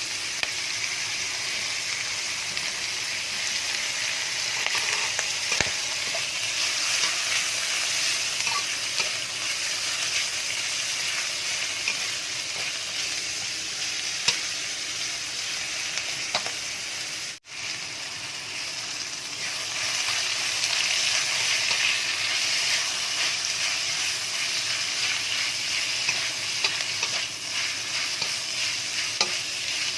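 Pad kra pao (holy-basil stir-fry) sizzling steadily in a hot pan while being stirred, with scattered clicks and scrapes of the spatula. The sound drops out for an instant about halfway through.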